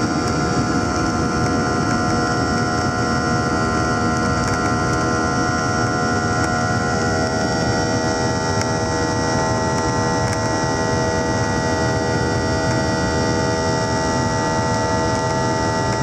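Boeing 737-800's CFM56-7B jet engines at takeoff thrust, heard from inside the cabin: a loud, steady rushing noise with a layer of fixed humming tones, holding unchanged through the end of the takeoff roll and the climb-out.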